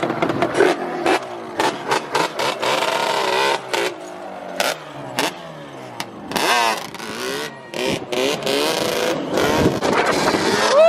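Yamaha Banshee 350 ATV two-stroke twin engine revving, its pitch rising and falling again and again, with many short sharp cracks throughout. Near the end it holds a higher, louder pitch.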